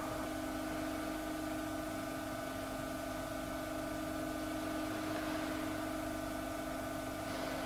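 Steady hum and hiss of an old video recording, with several constant tones and no distinct sounds over it.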